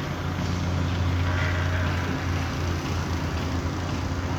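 Heavy construction machine's engine, a bulldozer as the video has it, running steadily with a constant low drone.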